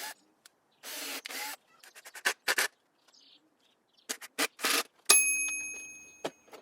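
Woodworking noises in short bursts of scraping and rubbing, then one sharp metallic strike about five seconds in that rings with a clear, steady tone and fades over about a second.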